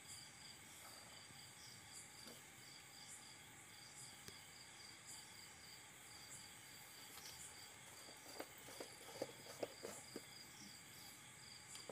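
Near silence with a faint, steady insect chirping in the background, and a few faint clicks of a wire whisk against a steel bowl near the end.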